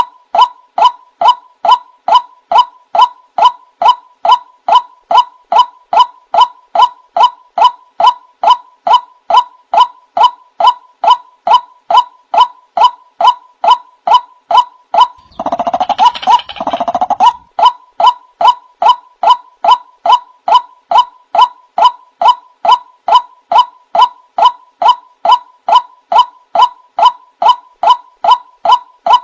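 Male white-breasted waterhen (wak-wak) calling a fast, even series of repeated 'wak' notes, about two to three a second. About halfway through, a harsher, lower-pitched burst of calling lasts about two seconds before the even series resumes.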